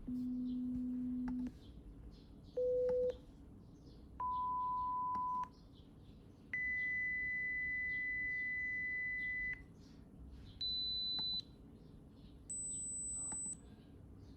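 Pure test tones from a hearing-test app, played one at a time: six steady beeps, each about an octave higher than the last, climbing from a low hum to a thin high whistle, in the stepped sequence of a pure-tone hearing test. The longest tone, in the middle, lasts about three seconds, and the others last half a second to a second and a half.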